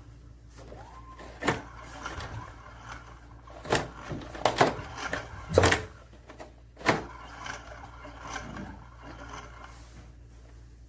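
Irregular sharp knocks and clunks from hands and tools working on an air conditioner's blower motor assembly, about half a dozen in the middle stretch, over a steady low hum.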